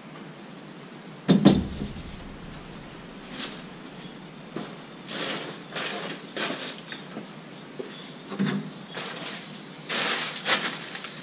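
A sharp knock about a second and a half in, then scattered footsteps and rustling as a person moves around a kayak on a tiled floor strewn with plastic wrapping.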